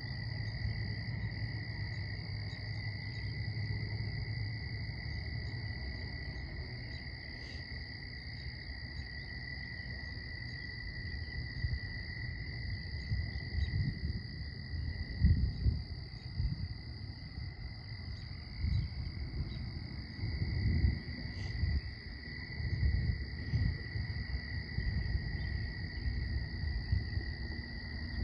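Steady high-pitched chorus of calling frogs and insects, holding two even pitches. From about halfway on, wind buffets the microphone in low rumbling gusts.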